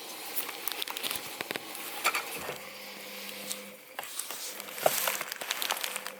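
Miele Novotronic W921 washing machine running its cycle: water hissing and splashing in the drum, with irregular clicks and knocks and a short low hum about two and a half seconds in.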